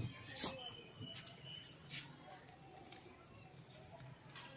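A cricket chirping steadily, short high chirps at one pitch several times a second, with a few soft knocks and shuffles.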